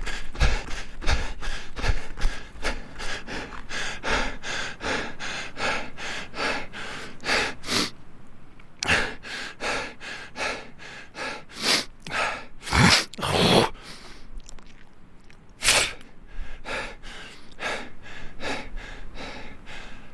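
A person breathing hard while running: quick, evenly spaced panting breaths. About eight seconds in, the breathing slows into fewer, deeper, louder gasps.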